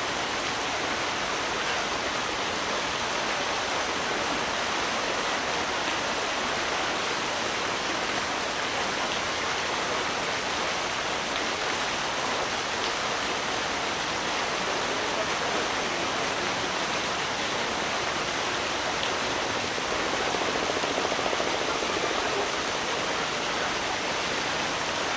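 Steady rush of running water pouring into a rocky pool, even and unbroken.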